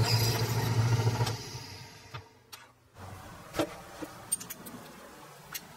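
Drill press running with its bit cutting through the clamped mild-steel karambit blank and handle-scale stock, a steady motor hum under the drilling noise. The sound fades out after about a second and a half, and a few faint clicks follow.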